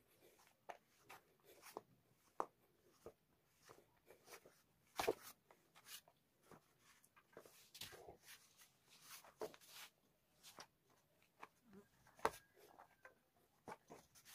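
Hands kneading flour bait dough in a stainless steel bowl: faint, irregular pats, squishes and scrapes, with sharper knocks of hand and dough against the metal, the loudest about five seconds in and again about twelve seconds in.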